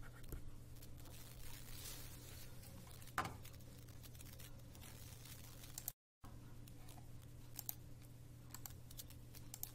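Quiet room tone with a steady low electrical hum and a few faint clicks and taps. The audio drops out to dead silence briefly about six seconds in.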